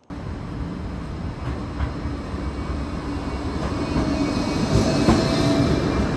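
Loud, steady mechanical rumble of a vehicle running, with a faint steady hum and scattered clicks. It starts abruptly and grows slowly louder.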